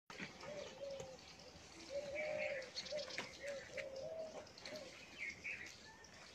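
Doves cooing: a run of short, low, arched coos repeating every half second or so, with smaller birds chirping higher up. A few scrapes and taps of a rake on dry dirt come through between the calls.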